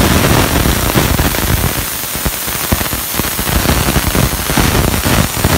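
Jet of dry steam hissing loudly from the trigger gun of an LPG-fired 12-bar steam car washer, set to its driest setting, with an irregular crackle underneath.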